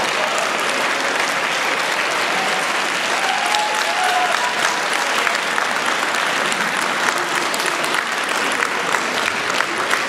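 Audience applauding steadily, the clapping growing more scattered into separate claps toward the end.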